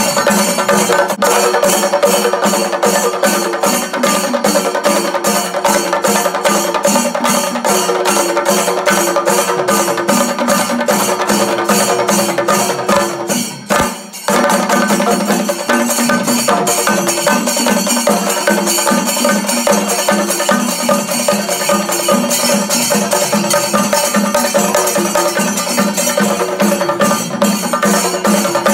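Loud music driven by fast, evenly repeating drum strokes, cutting out briefly about halfway through.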